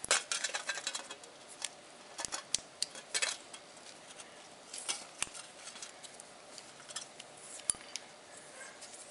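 PVC electrical tape being pulled off the roll and wound by hand over a spliced wire wrapped in a thin aluminium shield: irregular crackling peels, small clicks and faint metallic rustles, busiest in the first second and again around three seconds in.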